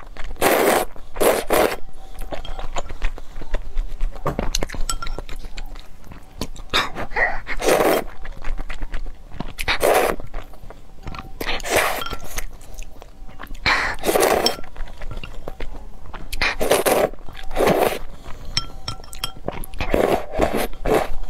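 A person slurping thick, sauce-coated spicy instant noodles (Buldak fire-chicken noodles) off chopsticks, about ten long wet slurps, several in quick pairs. Between the slurps come wet chewing and small clicks of the chopsticks.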